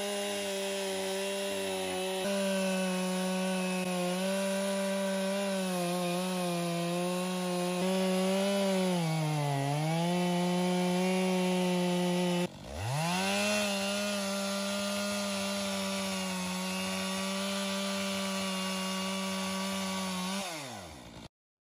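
Chainsaw in a chainsaw mill ripping a board lengthwise from a log, its engine running steadily under load. The pitch sags briefly about nine to ten seconds in. The sound breaks off about halfway through, then revs back up, and near the end the revs fall away and the engine stops.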